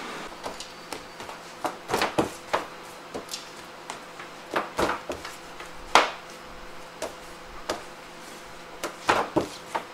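Irregular light knocks and taps of dough and a baking tray being handled on a stainless steel worktable, the loudest knock about six seconds in.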